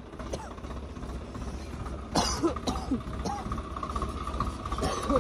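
Tractor engine running steadily under way, a low hum with a steady high whine over it. A short cough-like burst and brief voice sounds come about two seconds in and again near the end.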